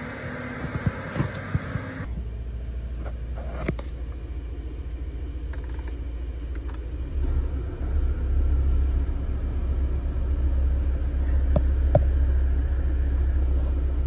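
Steady low rumble inside a small car's cabin, growing louder about seven seconds in, with a few light clicks.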